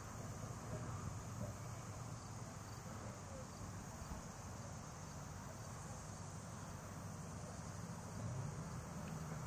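Low steady hum of the diesel engine in a converted St. Louis Car Co. streetcar as it approaches, swelling a little near the end. A steady high drone of insects runs underneath.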